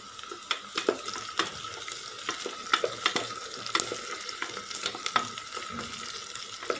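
Sliced onions and whole green chillies frying in hot oil in an aluminium pressure cooker, a steady sizzle, while a wooden slotted spoon stirs them with repeated scrapes and taps against the pot. The onions are being sautéed until golden.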